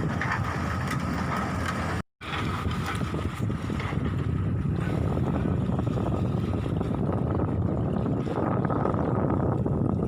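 Heavy diesel engine of a Hyundai excavator running steadily, with wind on the microphone. The sound drops out completely for a moment about two seconds in.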